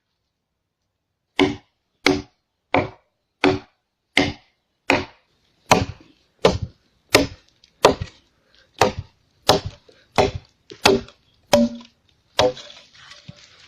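A tool striking wood, as in chopping: about sixteen sharp, evenly spaced blows, a little more than one a second, that stop near the end.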